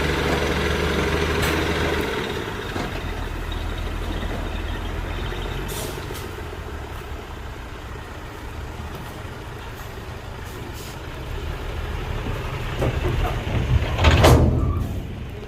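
Heavy diesel engine of a dump truck or bulldozer running steadily, louder for the first two seconds. Near the end the engine builds up and a short, loud burst of hiss cuts in.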